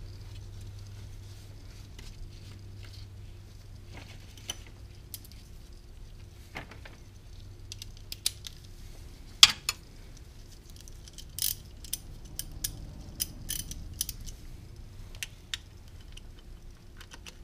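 Hand tools clinking and clicking as an 8 mm socket is fitted onto a ratchet and then put on a bolt: scattered light metallic clicks, one sharper clink about nine and a half seconds in and a run of clicks between about eleven and fifteen seconds.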